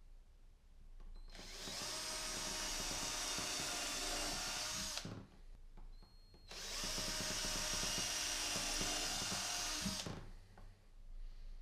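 Power drill running in two bursts of about three and a half seconds each, with a short pause between, as it drills or drives screws into wood.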